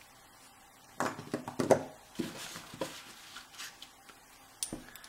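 Small metal euro lock cylinder parts being handled: a cluster of clicks and scrapes about a second in, fainter taps after, and one sharp click near the end.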